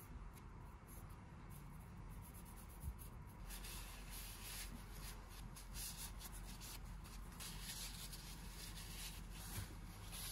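Faint scratching and rubbing by hand on a small workpiece: a quick run of short strokes that starts about three seconds in.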